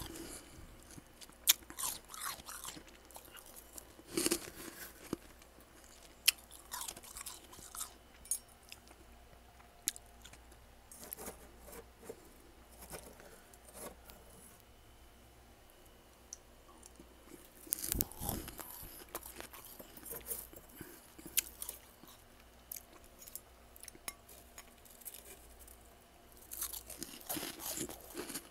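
A person biting and chewing freezer frost: irregular crisp crunches, a few sharp single ones in the first seconds, then denser bouts of crunching about two-thirds of the way through and again near the end.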